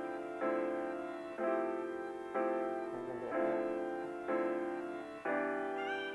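Background music: keyboard chords struck about once a second, each fading away before the next.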